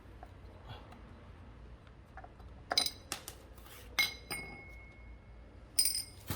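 A handful of light, hard clinks and taps, the kind made when metal tools or small parts are set down or knocked together. One of the clinks rings on briefly.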